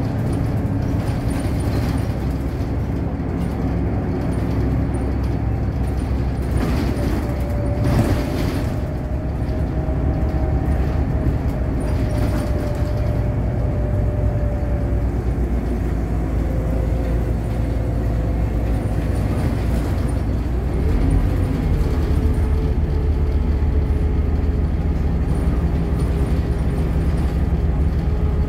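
Ride noise inside a moving bus: a steady low engine and road rumble, with a faint whine that slowly falls in pitch in steps. There is a brief louder noise about eight seconds in.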